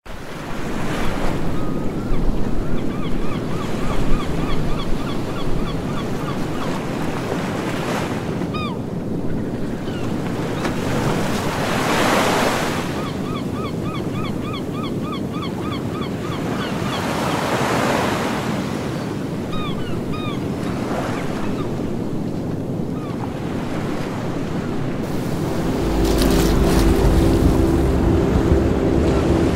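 Wind over choppy open water, small waves lapping, with wind rumbling on the microphone. Two runs of rapid high chirping calls, two short rushing bursts about five seconds apart, and a low steady hum that comes in near the end.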